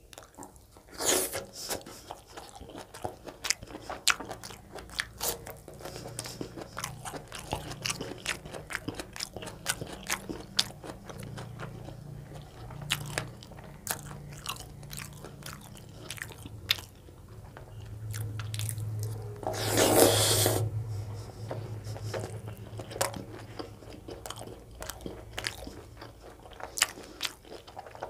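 Close-miked eating: a man chewing mouthfuls of chicken gizzard curry with soft roti, with many small wet mouth clicks and crunching bites. One louder crunch comes about two-thirds of the way through.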